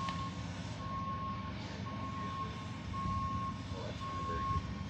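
Back-up alarm of a working vehicle beeping steadily, about one beep a second, over the low rumble of its running engine.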